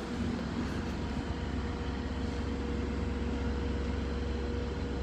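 Steady low machinery rumble with a faint, steady whine held throughout.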